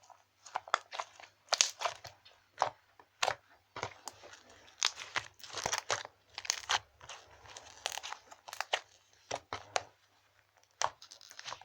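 Slime being squeezed and pressed by hand for ASMR, giving irregular clusters of sharp crackles and pops with short pauses between them.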